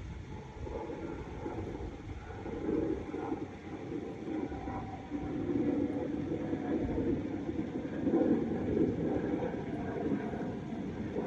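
Strong wind gusting over the microphone: an uneven low rumble that swells and eases.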